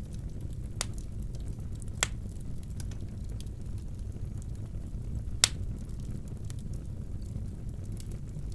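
Wood fire burning in a fireplace: a steady low rumble of the flames with scattered sharp cracks and pops, three of them stronger, the loudest about five and a half seconds in.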